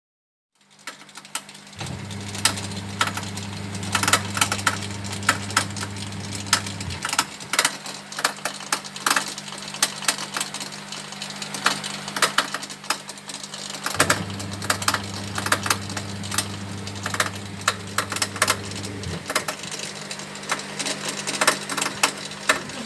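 Whirlpool washing machine running with a steady electrical hum, a deeper motor hum switching on twice for about five seconds at a time, over many sharp clicks and rattles. The machine shows a PE drain error, which the technician puts down to a faulty drain pump motor.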